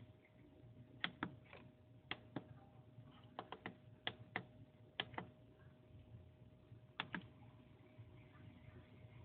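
Light sharp clicks, mostly in close pairs, about a dozen over the first seven seconds, over a faint steady whine.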